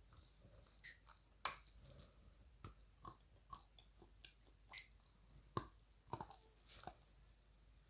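A person biting and chewing dry lumps of edible earth (clay or chalk), with irregular crisp crunches, the sharpest about a second and a half in.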